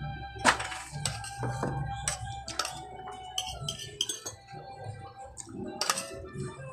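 Metal spoons and forks clinking and scraping against plates during a meal: scattered sharp clinks, the loudest about half a second in and near six seconds. Faint music runs underneath.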